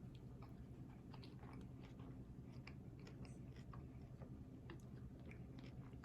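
A person chewing food close to the microphone, with many small, irregular wet mouth clicks.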